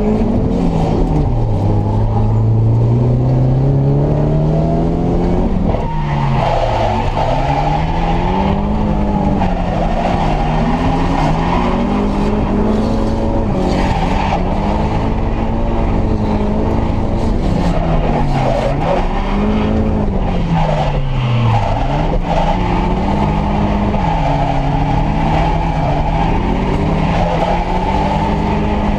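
A Nissan S13 drift car's engine heard from inside the cabin, climbing steadily in pitch as the car gets going, then rising and falling every second or two as the throttle is worked through a drift. Tyre squeal runs under it from about six seconds in.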